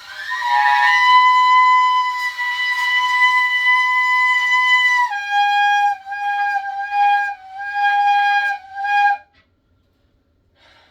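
Shofar blown: one long, high blast held about five seconds, then a drop to a lower note sounded as several short broken blasts that stop about nine seconds in.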